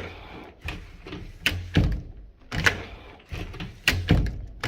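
Commercial door being pushed and pulled against its frame, giving a series of irregular knocks and clacks; the latch does not catch, so the door swings open without the paddle handle being worked.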